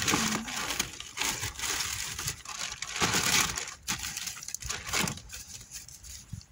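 Plastic bags and wrapping rustling and crinkling in irregular bursts as a gloved hand gathers vegetables into a plastic carrier bag.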